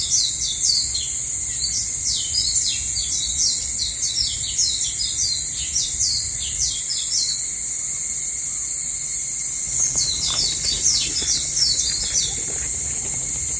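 Forest birdsong: a bird gives a long run of short, high chirps, then a shorter run about ten seconds in, over a steady high-pitched drone of insects.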